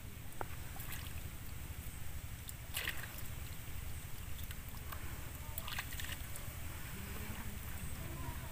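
Water sloshing, with a few short splashes over a steady low rumble.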